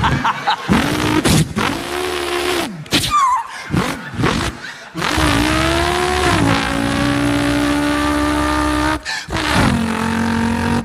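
A man vocally imitating a V8 racing car's engine: short revs that rise and fall, then a long held engine drone from about five seconds in that breaks off briefly near the end.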